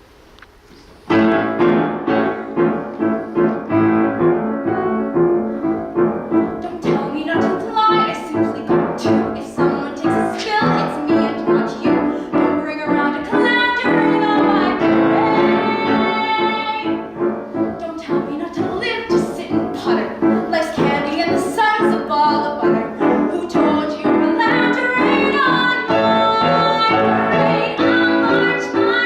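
Piano accompaniment starting suddenly about a second in and playing a lively musical-theatre song, with a female voice singing over it.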